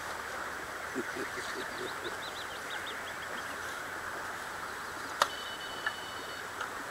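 Steady wind and water noise at a pond bank. About a second in a bird gives a quick run of short chirps. A little past the midpoint comes one sharp click, the loudest sound, followed by a brief high ringing.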